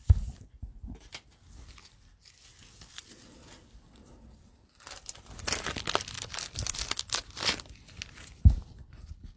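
Plastic cello wrapping and trading cards being handled, crinkling and rustling, thickest over a couple of seconds past the middle. There is a knock at the start and a sharp thump near the end, the loudest sound.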